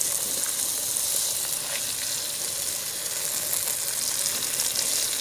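Ribeye steak sizzling steadily in butter and a little oil in a frying pan over a small gas stove.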